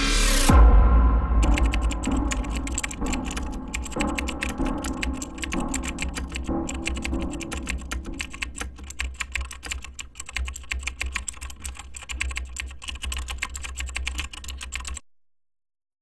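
Rapid computer-keyboard typing sound effect, a dense run of clicks that stops suddenly near the end. It opens with a rising whoosh and a deep low boom that fades away under the typing.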